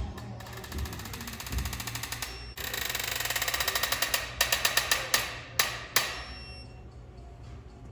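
Ratchet wrench clicking: a fast, even run of clicks that speeds up and grows louder, then a handful of separate, sharper clicks about two-thirds of the way through.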